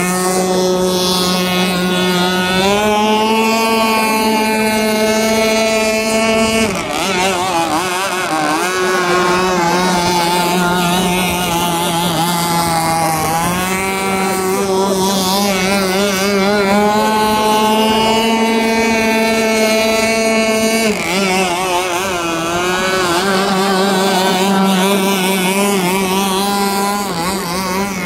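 Gasoline engine of a radio-controlled speedboat running at high revs as the boat skims the water. Its pitch holds steady, steps up about two and a half seconds in, drops and wavers around seven seconds and again around twenty-one seconds, and climbs back in between with the throttle.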